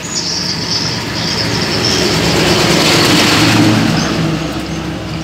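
A motor vehicle passing by: a rumble with a low engine hum that swells toward the middle and then fades.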